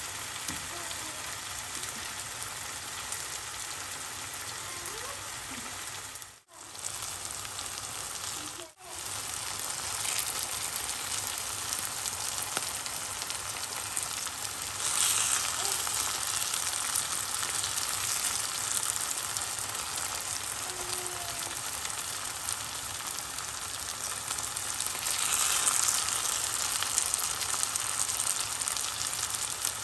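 Onions, tomatoes and green chilies sizzling as they fry in a stainless steel pot while a wooden spatula turns them. It is a steady hiss that swells louder for a few seconds about halfway through and again near the end, and it cuts out briefly twice in the first third.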